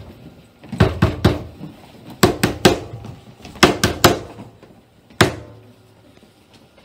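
Heavy pounding on a door in three quick bursts of about three blows each, then one last blow about five seconds in, echoing in the hall. This is the staged sound of the police breaking in on the hiding place.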